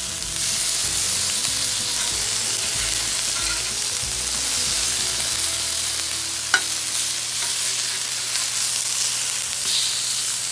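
Chicken pieces frying in bacon grease on a Blackstone flat-top griddle: a steady sizzling hiss, with a single sharp click about six and a half seconds in.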